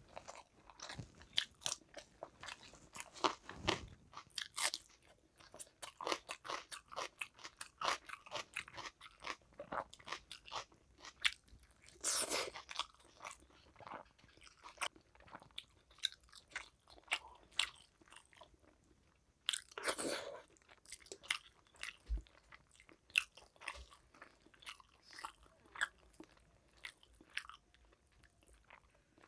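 Close-up eating sounds: wet chewing, lip smacks and crunching of rice and fried fish eaten by hand, in a quick uneven patter of small clicks. Twice, midway, a longer and louder rushing sound stands out.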